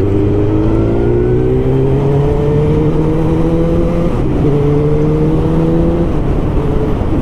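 Suzuki GSX-R1000 K2 motorcycle's inline-four engine accelerating on the road, its pitch climbing steadily, dropping briefly about four seconds in at an upshift, then climbing again before the throttle eases off near the end.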